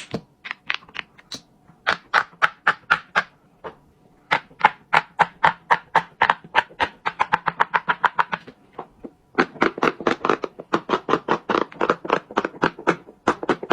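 Silicone pop-it fidget toys being popped bubble by bubble in a rapid run of sharp pops, with short breaks about four and nine seconds in, then speeding up to several pops a second.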